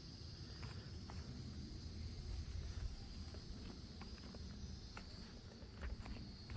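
Faint outdoor ambience: a steady high-pitched insect drone, a low rumble of wind on the microphone, and a few soft scattered clicks.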